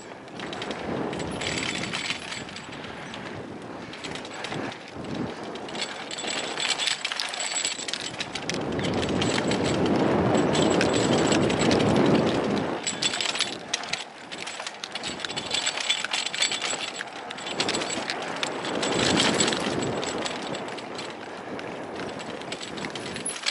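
Electric mountain bike riding fast down a dirt trail: tyres rolling and crunching over dirt and small stones, with the bike rattling over bumps. The ride noise swells to its loudest around the middle.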